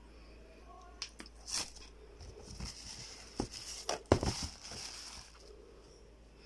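Tissue paper rustling and crinkling as a new sneaker is handled in its cardboard box, in irregular bursts with a few light knocks, loudest about four seconds in.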